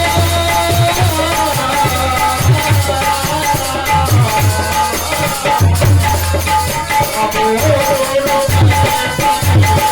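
Bundeli folk bhajan music in a mostly instrumental passage: a held, sliding melody line over repeated low drum beats.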